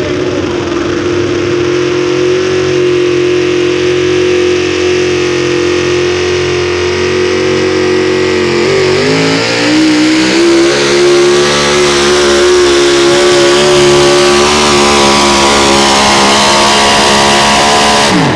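Highly tuned pulling engine at full throttle during a pull, held at high revs. Its pitch wavers and dips about halfway through, then climbs steadily before the sound cuts off abruptly near the end.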